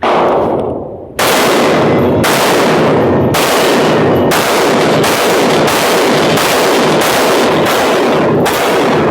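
A semi-automatic pistol fired in a string of about ten shots, roughly one a second, each shot loud and echoing.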